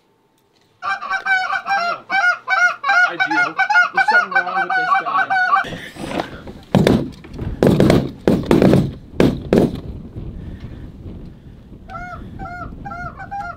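Canada goose honks and clucks in a fast, loud run, a short-reed goose-calling sequence meant to pull in passing geese. This is followed by several loud bursts or thumps, then fainter honks again near the end.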